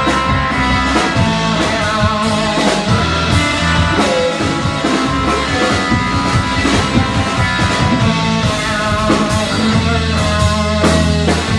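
Rock band playing a song with electric guitar, a held low bass line and drum kit, the drums hitting in a steady beat.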